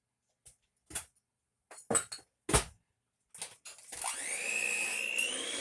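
A few clinks and knocks of dishes, then an electric mixer starts about four seconds in, its whine rising in pitch as it speeds up and then running steadily, blending chocolate chips into cookie dough.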